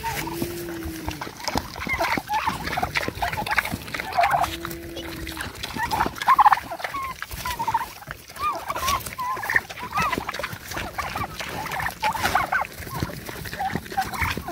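Farmyard poultry clucking and calling: many short, wavering calls, with two brief low steady tones about half a second in and again about four and a half seconds in.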